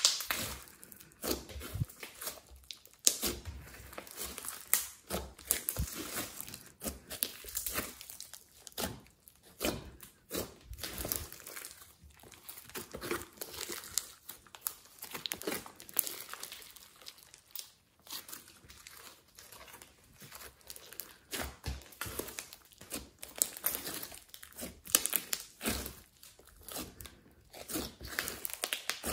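Hands squeezing, stretching and folding a large lump of airy glossy slime mixed with clay and glitter, giving irregular sticky crackling and popping.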